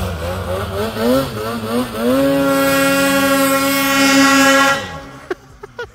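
Snowmobile engine revved in short, wavering blips as the sled is worked free of a snowy ditch. About two seconds in it is held at steady high revs as the sled drives up and out, then drops off quickly near the end.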